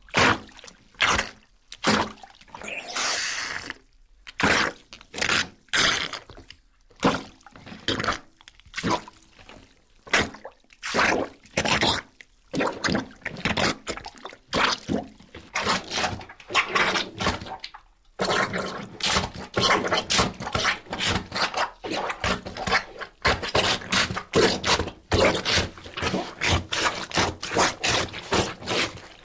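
Wet sucking and slurping noises in short, irregular bursts, coming quicker and denser in the second half.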